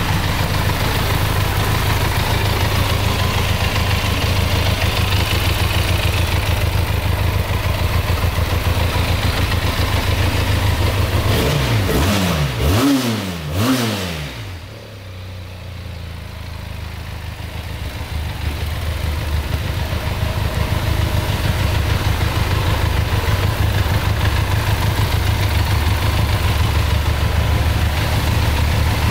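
2018 Benelli TRK502's 500 cc parallel-twin engine idling steadily, with the throttle blipped three times in quick succession about halfway through.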